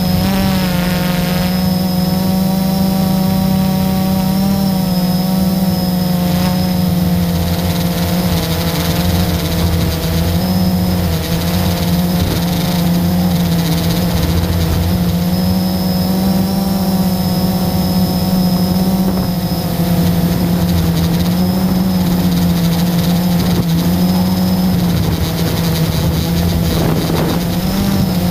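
Electric motors and propellers of an FPV drone buzzing steadily in flight, heard from its onboard camera, the pitch wavering slightly as the throttle shifts.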